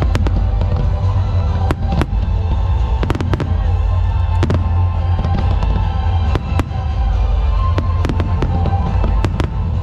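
Aerial fireworks going off: a rapid, irregular string of sharp bangs and crackles over a constant low rumble, with music playing alongside.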